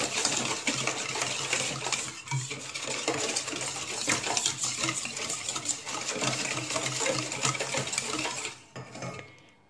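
Wire whisk beating egg into melted butter and sugar in a stainless steel bowl: fast, continuous clinking and scraping of the wires against the metal, stopping about a second before the end.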